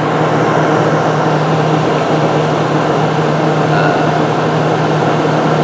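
1970 Montgomery Ward Signature window air conditioner running: a steady rush of fan air with a constant low hum beneath, from its fan and R22 reciprocating compressor.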